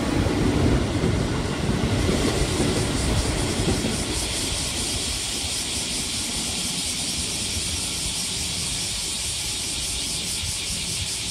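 Electric commuter train running past a station platform, a heavy rumble of wheels and cars. After a few seconds this gives way to a steadier, lighter hiss as an electric train moves off along the platform.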